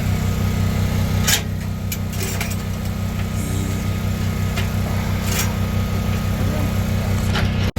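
An engine running steadily at idle, a constant low hum, with a few light knocks and clicks of work on the truck.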